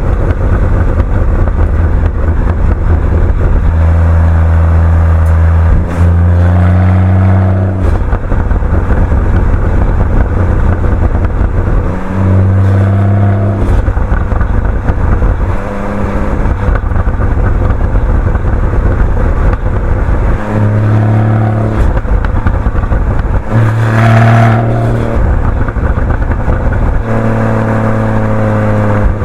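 Porsche 981 Boxster GTS's naturally aspirated flat-six running through its stock Porsche Sport Exhaust, repeatedly accelerating and easing off at low speed, its note climbing and dropping several times. A few sharp pops come from the exhaust, with one louder burst a little past the middle.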